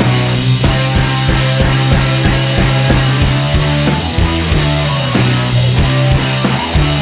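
Background music with a steady drum beat over sustained low bass notes.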